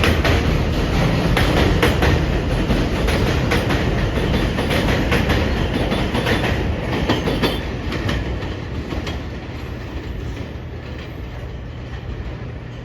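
Subway train pulling away, its wheels clicking over rail joints in a loud rumble that fades steadily as it recedes, leaving a faint low hum near the end.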